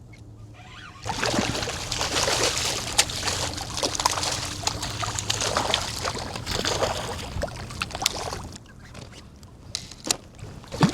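Water splashing and sloshing with scattered sharp clicks, starting about a second in and dying down near the end.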